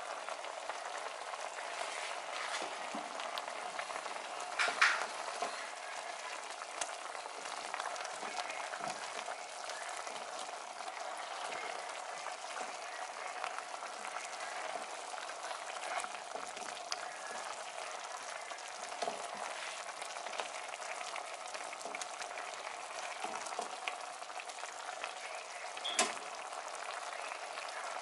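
Shrimp bubbling and sizzling steadily in a simmering sauce in a nonstick skillet, with a couple of sharp knocks, one about five seconds in and one near the end.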